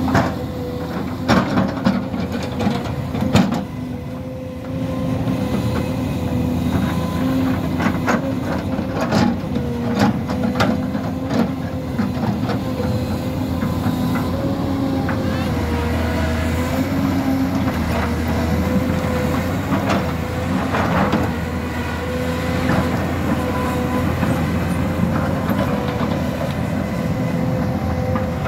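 Hyundai crawler excavator's diesel engine running under working load with a steady pump whine, while the bucket and boom give sharp metallic knocks and clanks several times as it digs and dumps dirt, the loudest about three seconds in.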